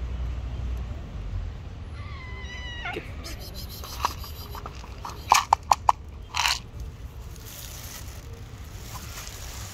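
A cat meows once, about two seconds in. A few seconds later come four sharp clicks and a short rattle as dry cat kibble is poured from a plastic cup onto a stone ledge.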